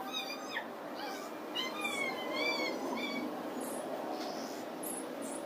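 A series of short, wavering high-pitched animal calls, several in quick succession.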